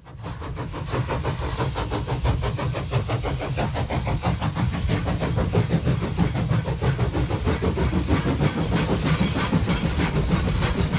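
A running engine: a fast, even clatter with a steady hiss over a low rumble, fading in at the start.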